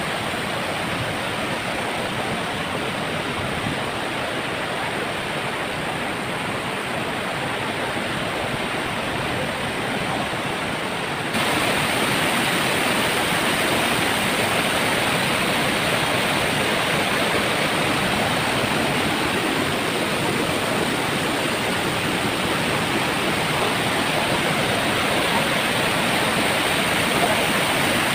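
Waterfall, a steady rush of falling water with no gaps; about eleven seconds in it suddenly becomes louder and brighter, then holds steady.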